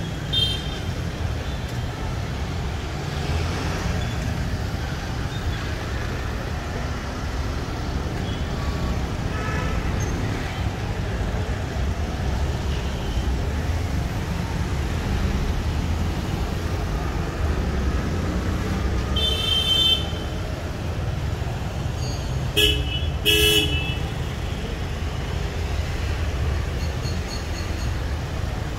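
Steady rumble of road traffic with car horns over it: a short toot at the very start, a honk of just under a second about 19 seconds in, and two quick toots a few seconds after that.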